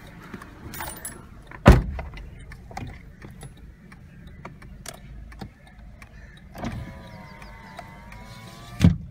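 Power-folding side mirror motor whining for about two seconds near the end and stopping with a clunk, over a low steady hum. A sharp knock sounds about two seconds in.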